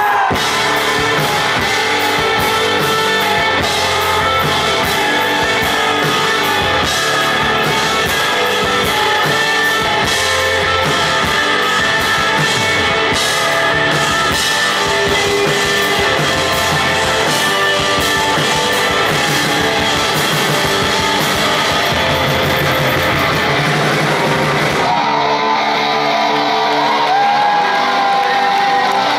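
Rock band playing live, instrumental: electric guitars over a full drum kit. About 25 seconds in the drums drop out, leaving held guitar notes.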